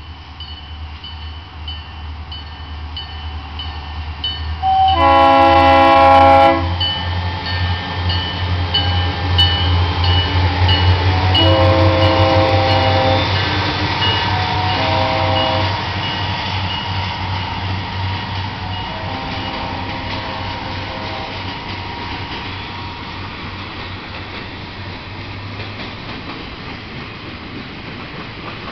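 An EMD GP40 diesel freight locomotive passing close, its multi-tone air horn blowing long, long, short, long, the pattern of a grade-crossing warning, over the engine's rumble. The first blast is the loudest, and the last one sounds lower in pitch after the locomotive has gone by. The rumble swells as the locomotive passes and fades, leaving freight cars rolling past.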